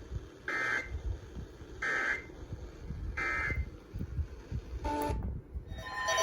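Three short, raspy bursts of a weather radio's SAME digital data tones, each under half a second and about 1.3 s apart: the end-of-message signal closing a flash flood warning broadcast. A brief blip follows about five seconds in.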